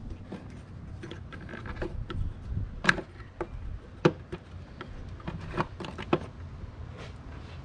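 Scattered sharp plastic clicks and knocks as the spring clips of a car's air filter box are unfastened and the plastic lid is worked loose, the loudest two about 3 and 4 seconds in. Near the end the panel air filter is pulled out of the housing.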